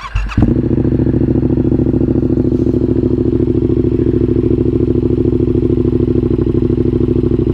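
Yamaha MT-07's parallel-twin engine, already warm, cranked on the starter and catching within about half a second, then idling steadily through an unbaffled Mivv GP Carbon exhaust with no catalytic converter.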